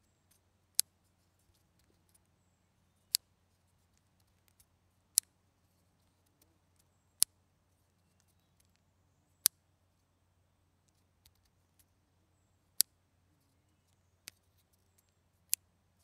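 Clothespin clicking, eight sharp snaps about two to three seconds apart, one of them weaker, with faint small handling ticks between.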